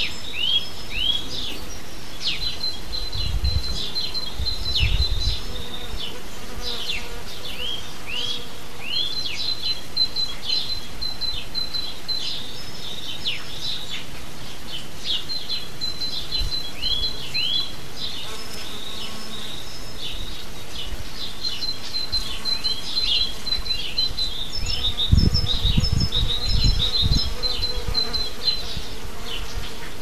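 Honeybees buzzing as they forage on blossoms, under songbirds chirping throughout with short rising and falling calls and quick runs of high notes. Low rumbles come twice, a few seconds in and again near the end.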